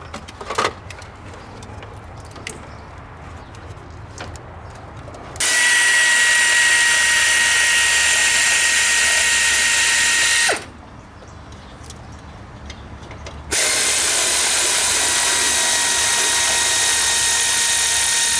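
A handheld power tool running at a steady speed in two long runs, about five seconds each with a three-second pause between, giving a steady whine over a strong hiss. A few light clicks and knocks come before it.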